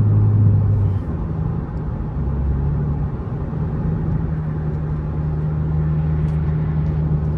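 Lexus engine through an axle-back exhaust with the muffler deleted, a steady low drone while driving. About a second in, the note drops lower and then holds steady.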